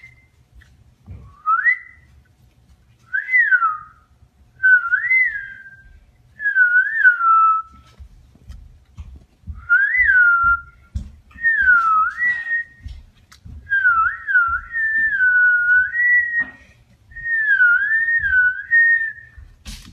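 Whistling: a string of about ten short whistled phrases, each sliding up and down in pitch, with short gaps between them.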